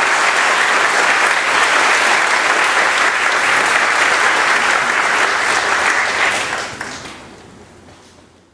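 Lecture audience applauding steadily at the end of a talk; the applause fades out over the last two seconds.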